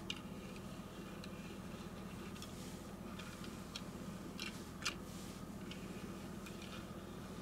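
A few light clicks and taps from handling a small diecast toy car, the sharpest about two-thirds of the way through, over a steady low hum.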